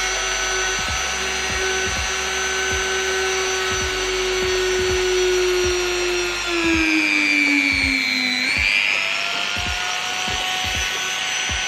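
Small handheld rotary tool whining at high speed while drilling a hole in a thin wooden ice cream stick. About two-thirds of the way in, its pitch sags as the bit bites into the wood, then climbs back, and it begins to wind down at the very end. Background music with a steady beat plays underneath.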